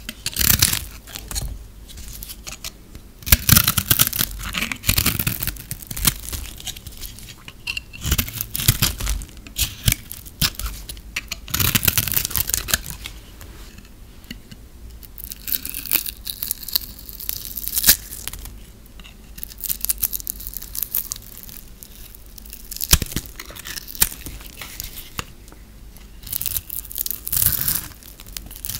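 Utility-knife blade shaving and scraping dry, brittle bars of soap, crackly scraping strokes coming in bursts with short pauses between them.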